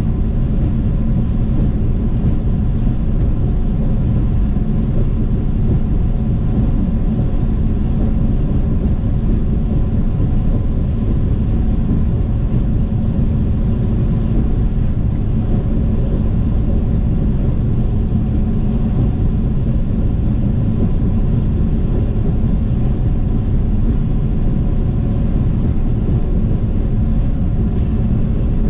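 Steady road noise of a vehicle driving at highway speed, heard from a dash cam inside the cabin: a constant low rumble of tyres and engine with a faint steady hum.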